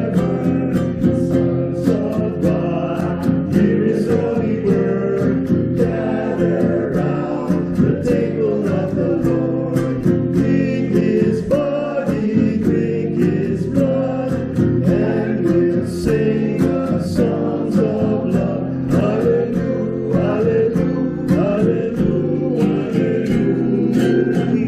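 Small group singing a hymn to strummed acoustic guitar accompaniment.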